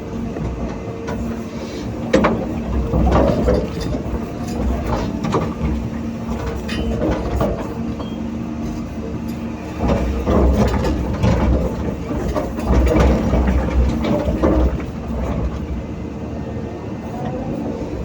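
Hydraulic excavator's diesel engine running steadily while digging and loading sand, with scattered metallic clanks and knocks from the bucket and machinery. The engine swells louder under load about ten seconds in and again a little later.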